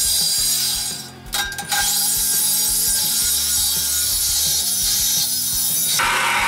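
Milwaukee M18 Fuel Sawzall reciprocating saw with a Diablo carbide-tipped blade cutting through a thick steel I-beam: a steady, high-pitched metallic rasp that breaks off briefly about a second in.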